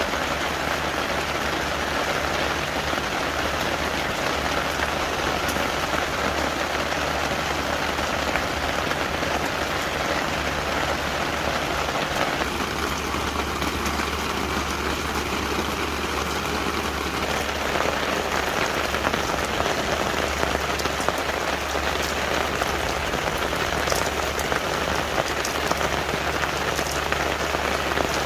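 Steady rain falling, an even hiss with scattered drop ticks that come more often in the second half.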